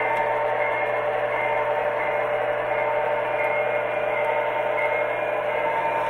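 Lionel O gauge model diesel locomotive running along three-rail track, making a steady mechanical running noise with a few held tones.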